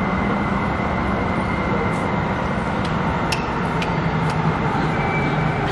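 Metro train running into an underground station: a steady rumbling rush with a few sharp clicks.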